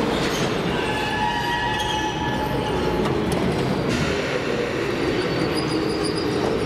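Metro train at an underground station platform: a steady rumble of train and station noise, with a high squealing whine of several tones lasting about two seconds, starting about a second in.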